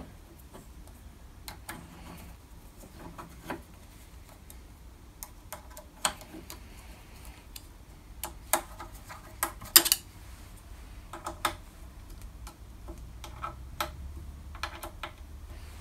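Irregular small metallic clicks and ticks of a hex key working in socket-head cap screws as they are turned and tightened down, with a few sharper clinks about six, eight and a half and ten seconds in.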